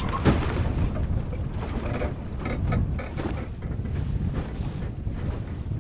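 Strong wind rumbling on the microphone while a small flat-bottomed plywood sailing skiff beats into short chop, its hull slapping the waves with spray splashing over it several times, the hardest slap just after the start.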